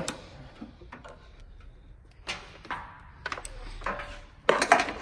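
Scattered light clicks and knocks as oscilloscope test leads and their clamps are handled, with a louder clatter near the end.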